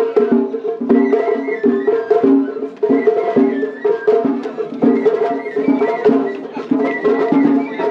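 Japanese festival music (matsuri-bayashi) from a parade float: a pitched melody that steps from note to note over fast, sharp clacking percussion and drum hits.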